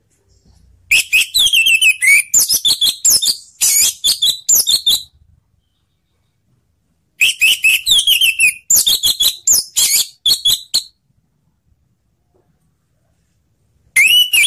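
Orange-headed thrush singing: two runs of quick, varied high whistled and chattering notes, each about four seconds long, with a third run starting near the end.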